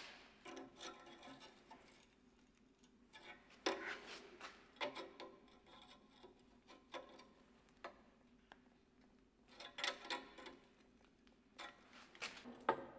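Light metal clinks and taps at irregular intervals, each leaving a brief ringing, as pliers grip and work a thin forged steel piece clamped upright.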